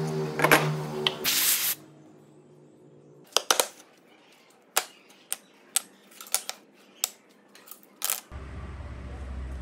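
A series of sharp wooden clacks and taps, about a dozen spread over several seconds, as cut wooden clock pieces and dowels are set down on a plywood bench top. Before them a steady machine hum runs with a short loud noise burst, and a low hum starts near the end.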